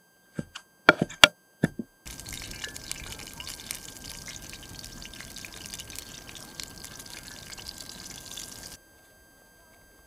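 Running water, an even rushing sound that starts suddenly about two seconds in and cuts off near the end, preceded by a few short clicks.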